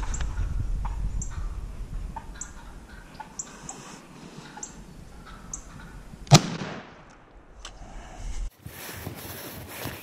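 A single Benelli shotgun blast about six seconds in, the loudest thing here, its report fading over about half a second. Before it, short sharp turkey calls repeat about once a second.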